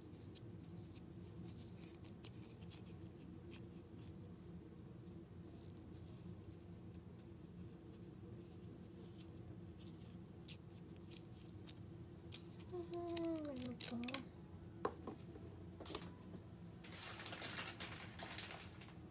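Faint clicks and rustling of hands handling a pinecone craft and its pipe-cleaner antlers, over a steady low hum. A brief falling tone sounds about two-thirds through, and a louder spell of rustling comes near the end.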